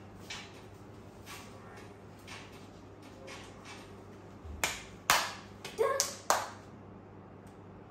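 Five sharp hand claps in under two seconds, a little past halfway through. Before them, a faint soft beat comes about once a second.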